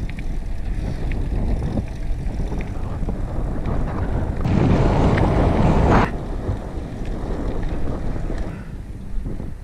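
Wind rumbling on a helmet-mounted action camera's microphone while cycling, with a louder gust about halfway through that lasts a second and a half and cuts off sharply.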